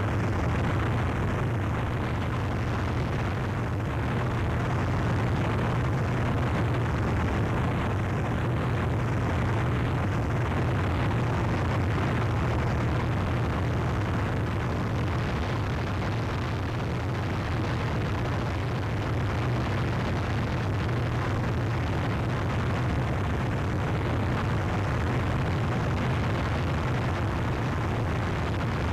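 Harsh noise wall: one dense, unvarying mass of static with a heavy low rumble beneath it.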